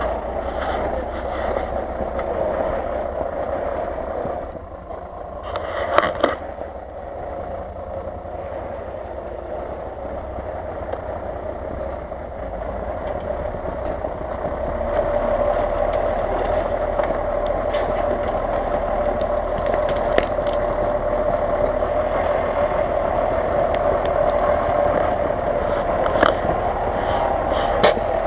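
Engine of a lifted Jeep Cherokee 'Grizzly' on big off-road tyres running steadily at low speed as it crawls through snow and fallen branches, growing louder from about halfway as it comes closer. A few short sharp cracks of branches breaking under it.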